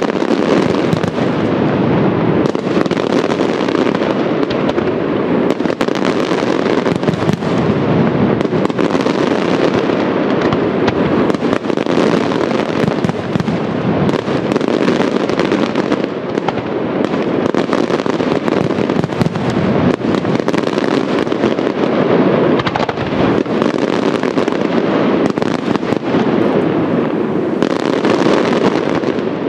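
Fireworks display by Di Matteo in a dense, unbroken barrage: many overlapping bangs and crackling bursts with no pause between them.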